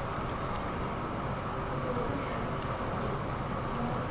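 Steady background room tone: a constant high-pitched whine over a low hum, with no distinct event.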